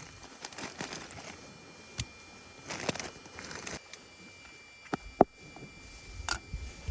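Rustling and crinkling with several sharp clicks, the loudest about five seconds in, and a faint steady high tone from about four seconds in.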